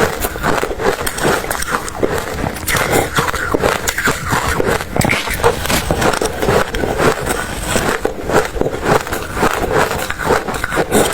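Close-miked chewing of ice: a continuous run of crisp cracks and crunches.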